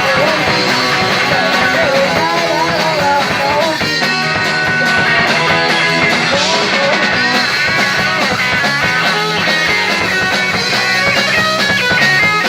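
Punk rock band playing live, with an electric guitar lead line that bends and wavers in pitch over the full band's steady playing.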